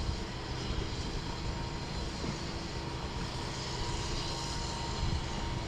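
Motorboat engine running with a steady drone and a low rumble.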